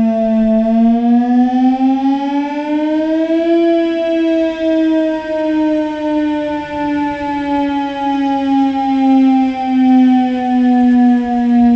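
Whelen WS-1000 tornado siren sound, played as an altered variation: a low wail that rises over about three seconds, then falls slowly and evenly.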